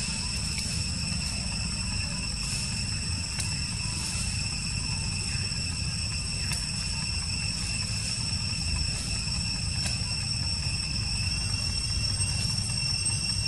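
Steady high-pitched insect chorus, several unchanging tones held together, over a continuous low rumble.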